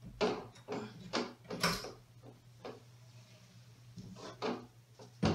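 Clicks and knocks of a metal over-the-door clip and a wooden door being handled as the rack's lower clip is hooked on: about four knocks in the first two seconds, then a few scattered ones later.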